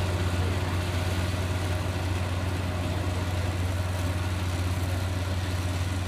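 Small combine harvester running steadily while cutting ripe rice: a constant low engine drone with a steady hiss above it.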